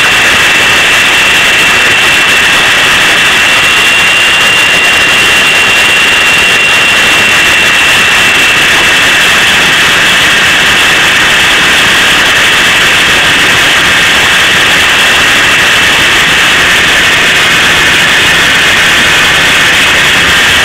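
Shark 450 radio-controlled model helicopter's motor and rotor heard from its own onboard camera: a loud, steady high whine over a rushing noise, holding almost the same pitch throughout.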